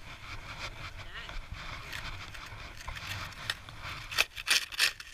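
Small plastic snow shovel scraping and pushing through packed snow, with a quick run of sharp knocks about four seconds in.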